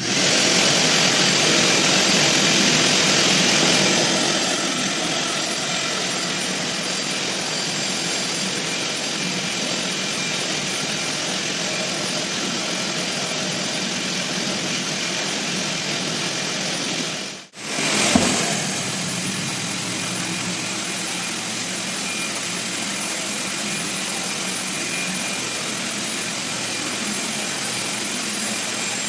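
Dustless floor-sanding equipment running: a steady, loud machine roar from a floor sander and its dust-extraction vacuum. It starts abruptly, eases slightly after about four seconds, and breaks off for an instant about 17 seconds in before carrying on.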